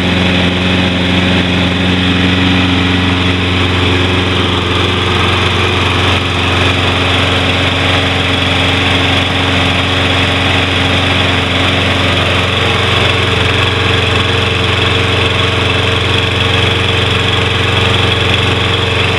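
190 cc Briggs & Stratton single-cylinder engine of a Toro Personal Pace walk-behind mower running steadily at a loud, even speed, warming up after a cold start.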